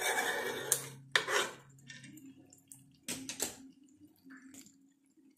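Metal spoon scraping and clinking against an aluminium pan of thick chicken roast gravy: a few short strokes in the first three and a half seconds, then quieter.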